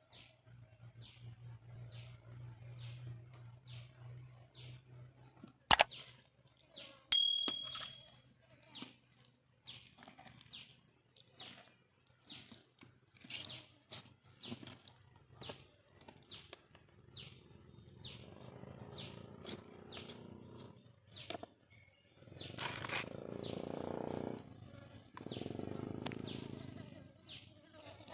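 Short high chirps repeating about two or three times a second. About six seconds in there is a sharp knock, and just after it a metallic ding with a brief ring, as of metal striking an aluminium tray. Later come soft handling noises of raw chicken being moved on the tray.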